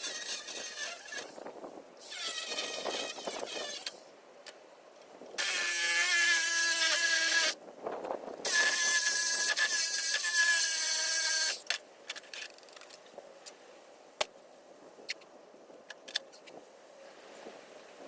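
Power saw cutting metal, run in four bursts of two to three seconds, each stopping abruptly. A few sharp clicks and knocks follow.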